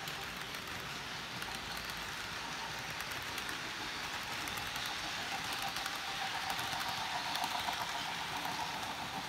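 Model freight cars rolling past on their track: a steady rolling hiss and rattle of the small wheels with faint fine ticking, and a thin whine that grows louder in the second half.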